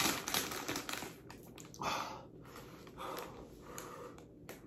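Crinkling and clicking of a crumpled plastic Buldak instant-noodle packet being handled and lifted, a dense run of small crackles at first, then a few softer rustles.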